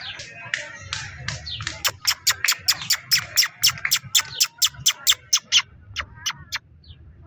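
A bird giving a rapid series of sharp, high calls, about five a second. They start softer, grow loud about two seconds in, then slow and stop shortly before the end.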